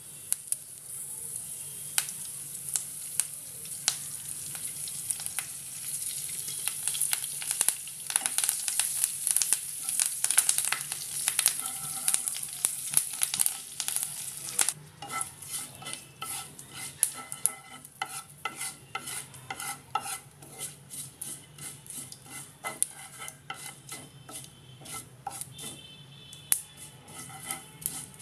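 Curry leaves and mustard seeds sizzling in hot oil in a nonstick frying pan while a wooden spatula stirs and scrapes them, the tempering of spices. The sizzle is dense for the first half, then thins into separate crackles and spatula strokes.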